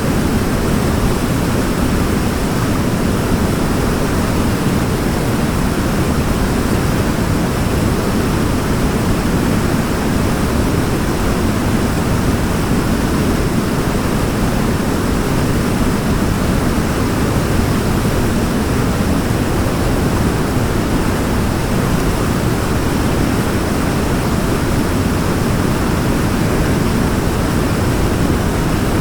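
Waterfall: a steady, even rush of falling water, heaviest in the low register.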